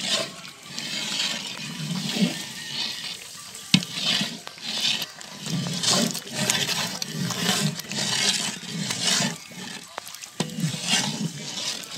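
A long-handled metal ladle stirring thick, wet chicken masala in a large aluminium pot, with repeated sloshing, scraping strokes about one a second. A single sharp knock comes a little under four seconds in.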